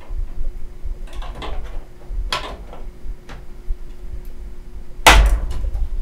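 A dual-slot graphics card being pushed into a motherboard's PCI Express slot: a few scattered plastic-and-metal clicks and knocks. Then one loud knock about five seconds in as the card seats.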